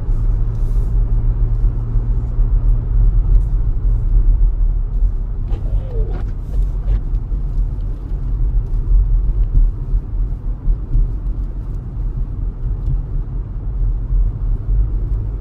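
Car running, heard from inside the cabin while driving on snowy roads: a steady low rumble of engine and tyre noise, with a low hum that fades out about four seconds in.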